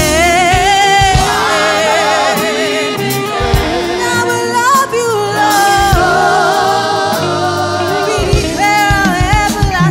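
Gospel praise-and-worship singing: lead and backing singers hold long wavering notes over a live band with drums.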